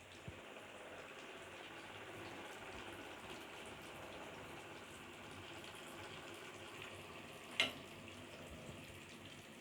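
Spring rolls frying in oil over a low flame: a faint, steady sizzle, with one sharp clack late on.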